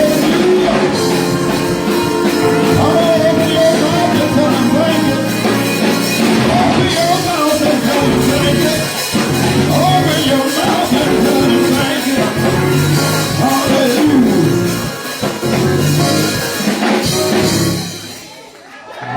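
Church band music with singing over drums and instruments, dying down sharply near the end.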